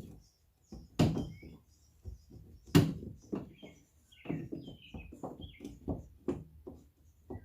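Metal clunks and knocks as a Ktuned K1 coilover is worked up into a car's rear suspension mount. Two sharp knocks about one and three seconds in, then a run of lighter clunks.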